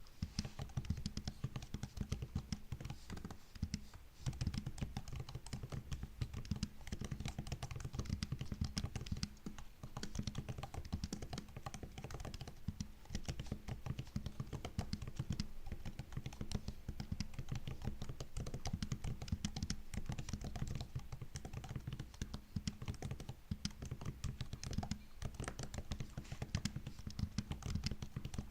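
Continuous fast typing on a MacBook's built-in laptop keyboard: a dense run of key clicks and taps, with short pauses about four and ten seconds in.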